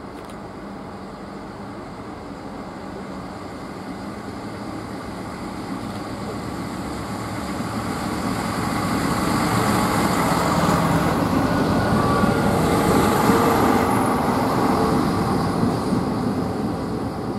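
A TER regional train running past along the platform: its rumble grows louder as it approaches, peaks about two-thirds of the way through with a few brief squeals, then fades as it moves away.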